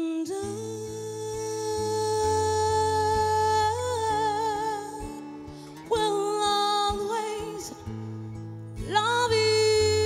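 A woman singing long held notes with vibrato, re-entering after short breaks about 6 and 9 seconds in, over a soft accompaniment of sustained low notes.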